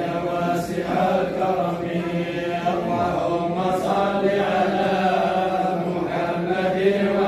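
A group of men chanting a Sufi dhikr together, a continuous sung invocation of "Allah" carried by many voices over a steady held low note.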